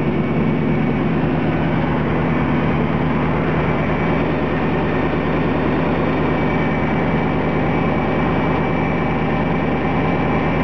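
Vehicle engine idling steadily, heard from underneath close to the exhaust manifold and Y-pipe joint. Some exhaust leak noise is still there, which the owner places at the other side's unrepaired manifold joint.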